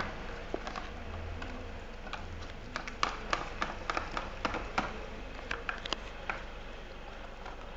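Sticky slime being stirred and pressed around the sides of its container, giving irregular small clicks and ticks that come thickest in the middle. The slime is only partly clumped after the activator.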